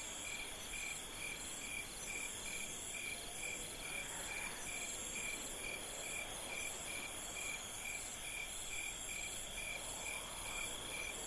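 A chorus of crickets and other night insects: several steady high trills, one of them chirping evenly about twice a second.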